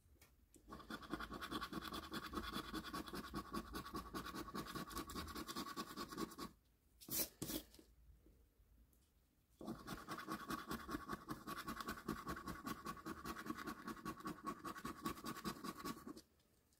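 A £1 coin scratching the silver coating off a paper scratchcard in rapid back-and-forth strokes, in two spells of about six seconds each. Between them is a quiet pause with one short sharp knock.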